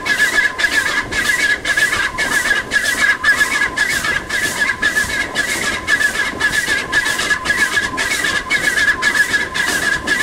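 Sardinian narrow-gauge 2-6-2T steam tank locomotive working hard on a steep climb, its exhaust beating steadily about three times a second, heard from a carriage behind it. A continuous high-pitched squeal runs over the beats.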